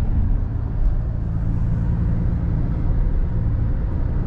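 Taxi car driving, heard from inside the cabin: a steady rumble of engine and road noise with a low hum.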